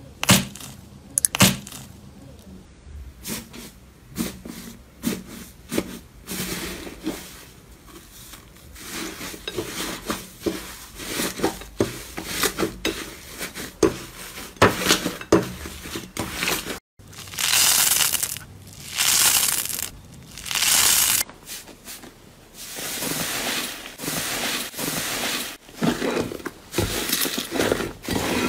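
Slime being squeezed, kneaded and pressed by hand: sharp wet clicks and crackles as trapped air pops, with longer crackling stretches in the second half.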